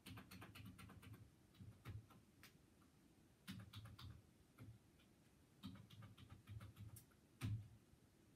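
Faint, irregular clicking and light tapping in short clusters, the loudest tap near the end. The spacing is uneven, not the steady once-a-second tick of a clock.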